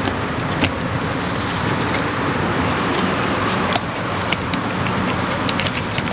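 A bicycle riding along, heard from a camera clamped to its handlebar: a steady rushing noise with scattered sharp clicks and knocks, about a second in and several more from near the middle on.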